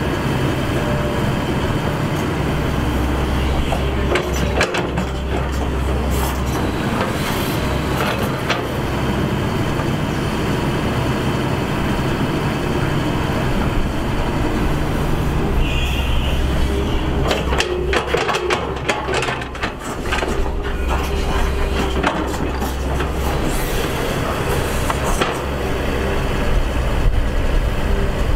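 Shantui ME210LC-1 crawler excavator's diesel engine running under load as it digs, its note swelling and easing with the work, with clanks and knocks of the bucket in the soil in two clusters, a few seconds in and again past the middle.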